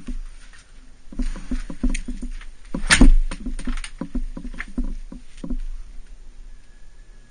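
Honda CRF250R single-cylinder dirt bike being kicked over without starting: runs of quick chuffs and knocks as the engine turns over and dies out, with one loud knock about three seconds in. The engine never catches, which the owner blames on bad 86-octane gas that won't combust.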